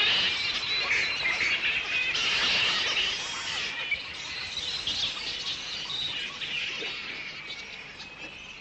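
Black flying foxes calling in their roost: a dense din of many overlapping shrill, chattering calls. It is loudest in the first few seconds and slowly fades.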